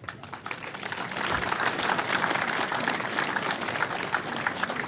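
Audience applauding, the clapping building up over the first couple of seconds and then holding steady.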